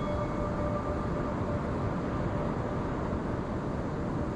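Strong wind blowing over the microphone together with the surf of a rough sea on a pebble beach: a steady noise, heaviest in the low end.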